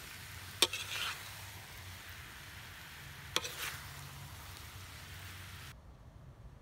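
Sweet potato chunks cooking in thick palm sugar syrup in a metal pan, sizzling steadily while a metal spoon stirs them and clinks sharply against the pan twice. The sizzle cuts off suddenly near the end.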